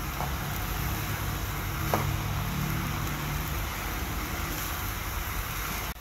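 Chopped onions sizzling in hot oil in a nonstick pan while being stirred with a slotted spoon, a steady frying hiss over a low hum, with a light knock of the spoon against the pan about two seconds in.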